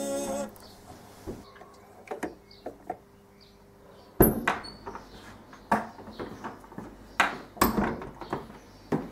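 Music stops about half a second in, then scattered clicks and sharp knocks of handling. The loudest knock comes about four seconds in, with another pair about seven seconds in, and near the end a wooden door is handled.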